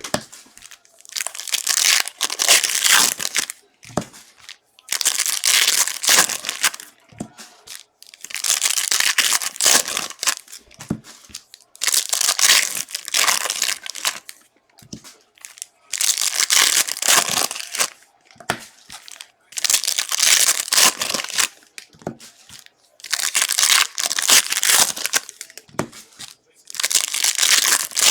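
Wrappers of 2022 Prizm No Huddle football card packs being torn open and crinkled by hand, over and over. Each rip-and-crumple lasts a second or two, with short pauses between.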